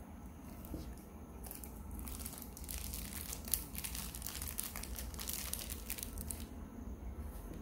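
Packaging crinkling and rustling as it is handled, with one sharp click about three and a half seconds in.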